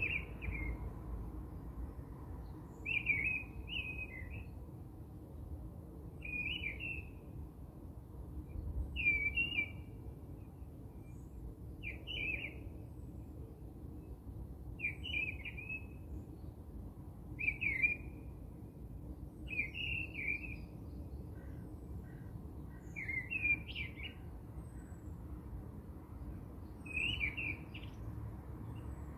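A small songbird chirping a short phrase over and over, about every three seconds, over faint low background noise.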